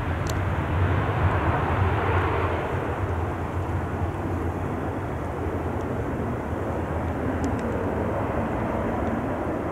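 Turboprop engines of a Bombardier Dash 8 Q400 running as the airliner rolls on the ground, a steady drone with a deep rumble that eases slightly after a few seconds.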